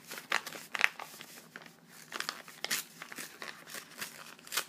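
Paper crinkling and tearing in short, irregular rustles: a birthday card's envelope being handled and opened.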